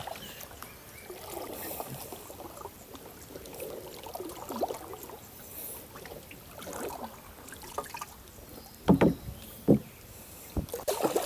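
Bumps and shuffling against the hull of a small open boat, with two sharp knocks close together about nine seconds in.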